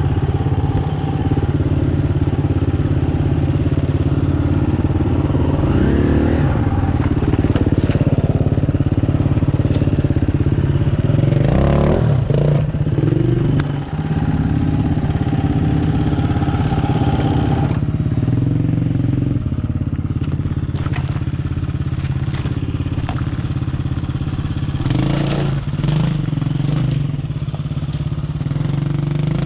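Dirt bike engine running at low revs, pitch shifting with the throttle as the bike crawls over loose rock, with occasional knocks and clatter from rocks under the wheels.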